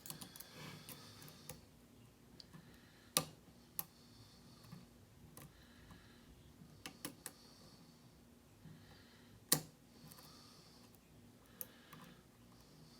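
Lock pick and tension wrench working the pins of a Martom Euro cylinder lock: faint, scattered metallic clicks and ticks, with two louder clicks about three seconds in and near nine and a half seconds.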